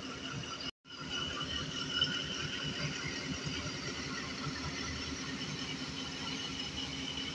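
Pakistan Railways ZCU-20 diesel-electric locomotive's engine running steadily as it pulls a passenger train slowly away from the platform, with an even drone and steady tones. The sound cuts out completely for a moment just under a second in.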